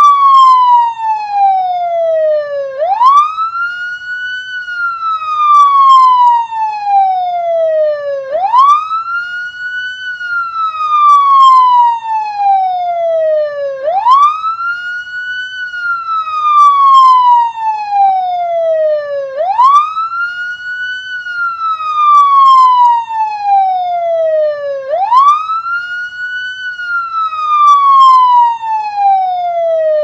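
Police siren wailing: each cycle is a quick rise in pitch followed by a slower, longer fall, repeating about every five and a half seconds, five rises in all. Loud.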